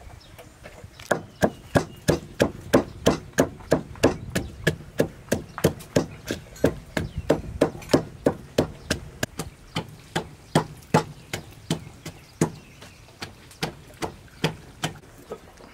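Wooden pestle pounding garlic, red chilies and shallots in a wooden mortar: steady thuds about three a second, starting about a second in and thinning out near the end.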